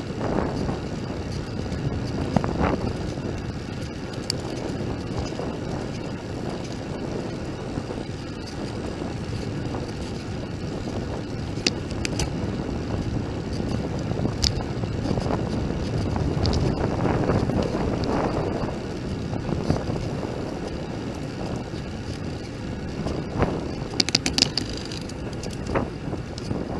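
Wind buffeting a bike-mounted camera's microphone and a steady road rumble while cycling, with a few sharp clicks and rattles. The noise swells for a few seconds about halfway through.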